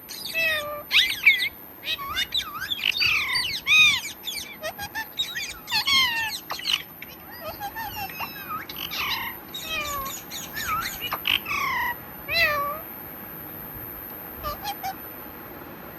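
Pet parrot giving a rapid string of short, swooping meow-like calls and squawks, falling quiet about twelve seconds in, with a couple of brief calls near the end.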